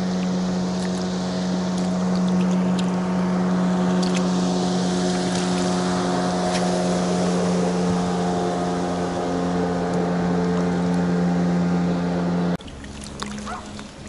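Motorboat engine running at a steady pitch, loud and even, then cut off abruptly about twelve and a half seconds in.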